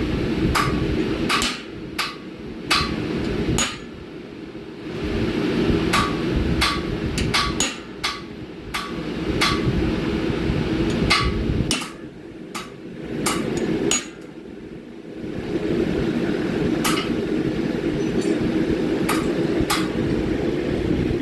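Hammer blows on a railroad spike being forged at the anvil, struck at an uneven pace, each with a short metallic ring. Under them is a steady rushing noise that cuts out and returns several times.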